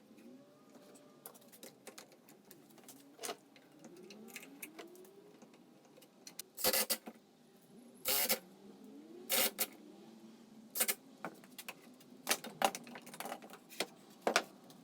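Workshop handling sounds: scattered clicks and knocks of wooden parts and tools being worked by hand, with a few louder clatters in the second half.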